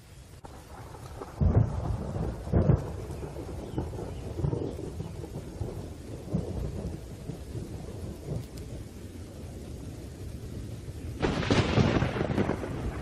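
Thunderstorm ambience: steady rain with rolling thunder. It starts suddenly, with two sharp claps of thunder about a second and a half and two and a half seconds in, and a longer, louder roll of thunder near the end.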